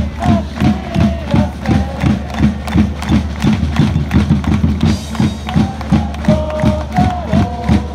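Football supporters' player chant: a bass drum beating a steady rhythm of about three strokes a second, with a tune carried over it.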